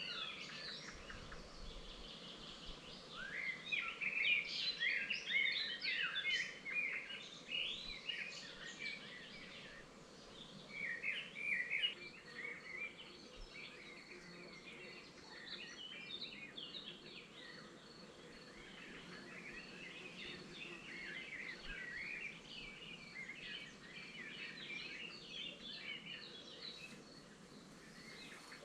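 Wild songbirds chirping and singing, many short overlapping calls. About halfway in, a steady high insect trill joins them.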